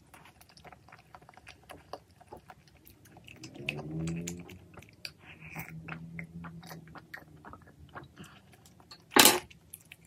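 Close-up mukbang eating sounds: chewing, slurping and wet mouth clicks over cream tteokbokki and glass noodles, with a sip from a mug. Around four seconds in, a muffled vehicle engine outside rises and falls. About nine seconds in there is one short, loud knock.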